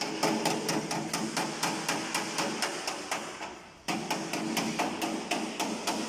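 A hammer beating sheet-metal body panels during jeep bodywork repair, with rapid, even blows at about five a second and a brief pause a little past halfway.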